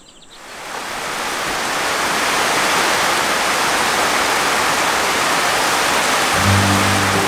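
Heavy rain pouring down in a steady loud rush, fading in over the first second or two. A low steady hum joins near the end.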